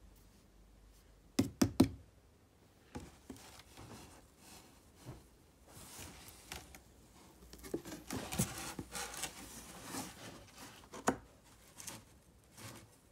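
A miniature schnauzer moving about inside a cardboard box: knocks and bumps against the cardboard, three sharp ones about a second and a half in, and a busy run of scratching and scraping of paws on cardboard between about six and ten seconds, with another knock near eleven seconds.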